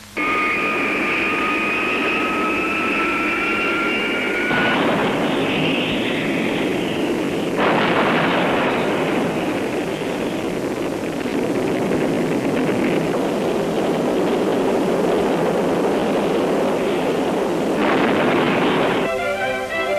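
Jet aircraft noise: a high whine, rising slightly in pitch over a rushing roar, for the first few seconds, then a steady rushing roar that swells again about a third of the way in and near the end. It starts and cuts off abruptly.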